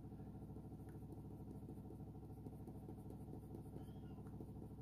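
Faint, steady low background hum made of several even tones, like an appliance or electrical hum.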